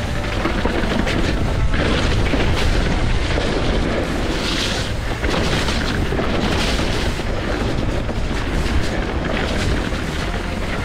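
Wind buffeting an action camera's microphone in a steady low rumble, mixed with tyre noise and the mountain bike rattling over a rough, wet dirt trail.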